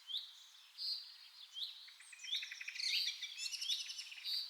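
Small songbirds chirping: short high notes that swoop up or down, mixed with quick rattling trills, repeating every second or so.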